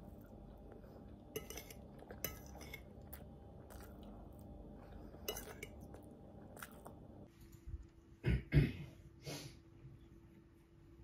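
Scattered light clicks and clatters of small household objects being handled, over a low steady background hum, with a few louder knocks about eight to nine seconds in.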